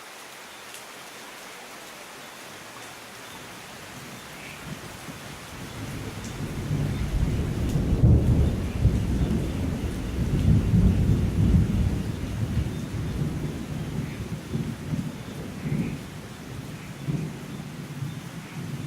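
Steady rain with a long roll of thunder that builds from about four seconds in, is loudest in the middle and rumbles away toward the end.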